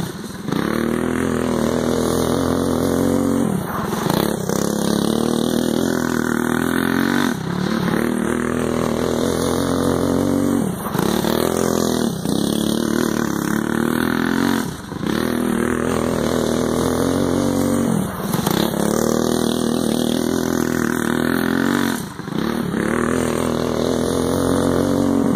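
Go-kart engine running hard around a dirt track. Its note drops briefly about every three to four seconds as the throttle eases for each turn, then climbs again as the kart accelerates.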